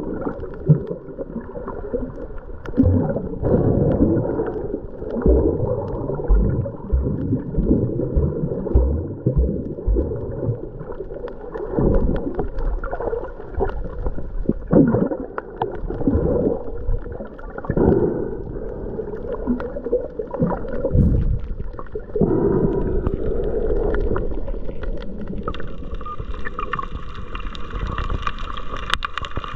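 Muffled rushing and gurgling of water heard underwater, in uneven swells, as the camera moves through the water while snorkeling. A steady higher hum joins near the end.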